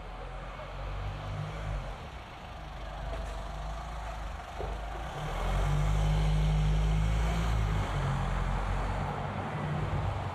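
A motor vehicle's engine running at low revs, with a steady low hum that grows louder about five seconds in and eases near the end, over general street traffic noise.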